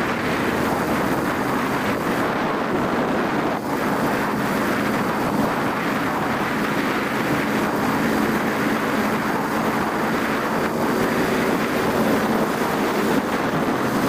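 Motorcycle riding along at a steady speed, its engine's hum nearly buried under heavy wind rushing over a helmet-mounted microphone.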